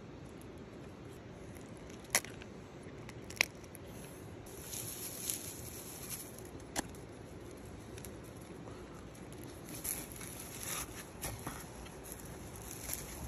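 Dried bonito flakes sprinkled by hand onto a bowl of rice and grilled pork: a light, crinkly rustling and patter from about four seconds in and again near the end. Two sharp clicks come before it, about two and three and a half seconds in.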